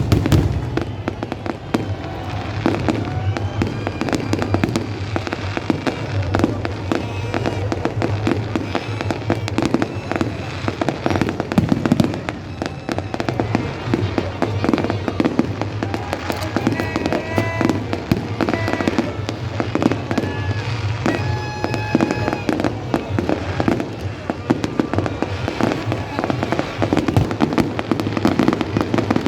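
Fireworks display: a dense, continuous barrage of bangs and crackling pops.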